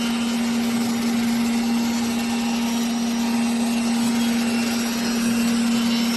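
Spindle of a 5-axis CNC wood chair-leg shaper running at a steady speed: one constant hum over an even machining hiss.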